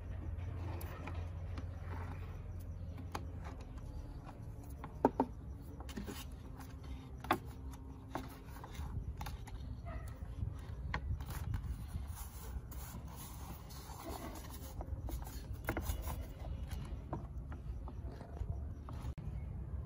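Light workbench handling sounds: scattered sharp clicks and taps, with soft scraping and rubbing, over a steady low hum.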